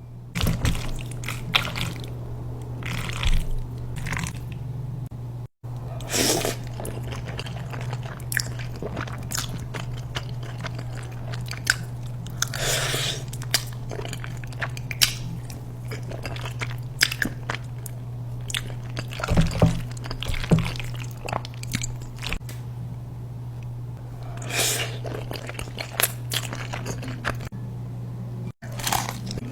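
Close-miked mukbang eating of mac and cheese: irregular crunching and wet chewing bites throughout, over a steady low hum.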